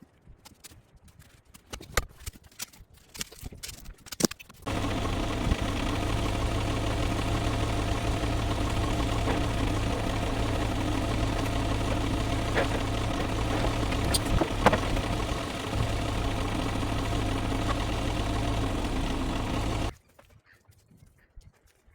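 A few scattered knocks, then an engine running steadily at idle, which comes in suddenly about five seconds in and cuts off suddenly near the end.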